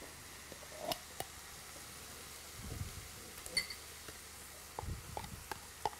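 Faint clinks and scrapes of a metal spoon in an open tin can of tomato paste, with one short metallic ring about three and a half seconds in, among soft knocks of kitchen handling.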